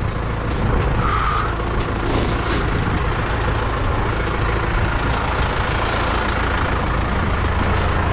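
Farm tractor's diesel engine running steadily at a low, even rumble.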